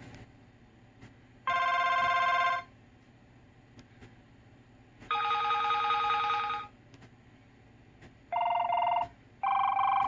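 Samsung BlackJack II SGH-i617 smartphone's speaker playing ringtone previews: four separate ringing tones, each lasting about one to one and a half seconds, with the last two shorter and close together near the end.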